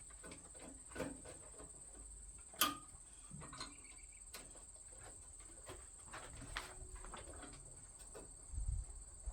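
Faint, irregular clicks and taps of small metal smoker parts and screws being handled and fastened by hand, with a sharper knock about two and a half seconds in.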